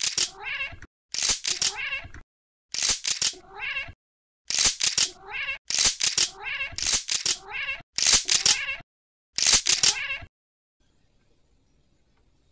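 A cat meowing over and over, about eight meows of roughly a second each with short silent gaps between them, stopping about ten seconds in.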